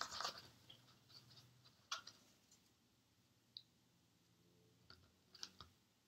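Near silence, broken by a few faint, short taps and clicks of a cotton swab dabbing glue out of a paper bowl and onto a folded paper tab.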